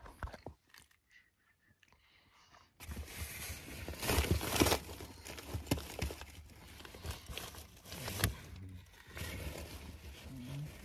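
Quiet for about three seconds, then paper food packaging rustling and crinkling with many small crackles, loudest twice, as the fast-food bags and wrappers are handled.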